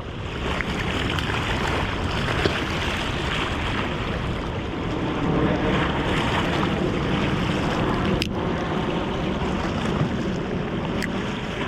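Steady wind and water noise. A sharp click comes about two-thirds of the way through, and a fainter one near the end.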